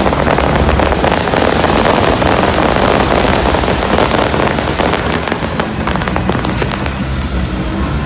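Fireworks display: a dense crackle of many small bursts, thickest in the first half and thinning toward the end, with steady music underneath.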